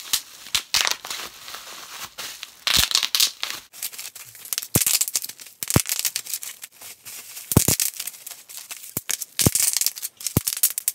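Plastic bubble-wrap packaging crinkling and tearing as it is pulled open by hand, with scattered sharp clicks.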